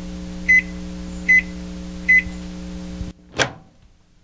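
Microwave oven running with a steady hum, beeping three times at an even pace, under a second apart. The hum cuts off about three seconds in, followed by a brief sharp sound.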